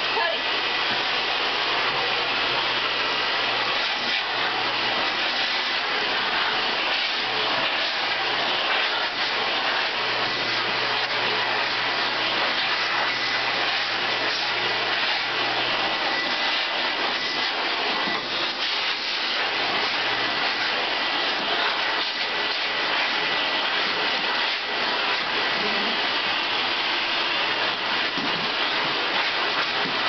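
Canister vacuum cleaner running steadily, with a thin high whine, its hose held against a dog's coat to suck up loose hair.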